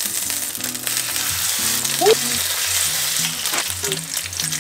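Thin slices of pork belly sizzling in oil in a nonstick frying pan, with scattered short clicks from the tongs and kitchen scissors. Background music with steady low notes runs underneath.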